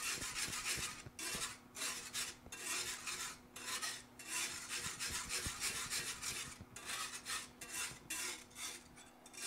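Metal wire whisk scraping around a cast iron skillet while scrambling eggs: a rapid rasping scrape in repeated bursts with brief pauses.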